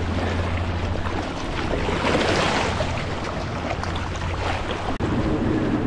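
Sea surf washing and foaming over a rock platform, swelling louder about two seconds in, with wind rumbling on the microphone.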